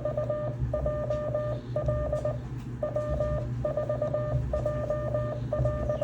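Morse code (CW) sidetone from a ham radio, keyed with a Begali Simplex paddle through the radio's electronic keyer: one steady beep tone sent in quick groups of even dots and dashes, with brief gaps between characters. A low steady hum runs underneath.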